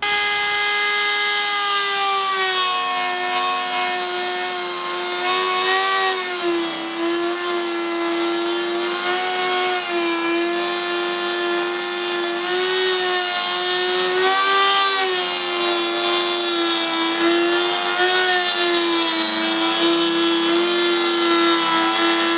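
Table-mounted plunge router spinning a groove cutter bit, milling a groove along a pallet plank: a high steady whine with a rasp of wood being cut. It comes on abruptly, and the pitch sags and wavers now and then as the plank is fed into the cutter.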